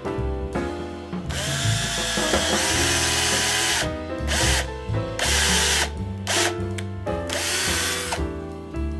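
Power drill running: one long run of about two and a half seconds, then several short bursts, over background music.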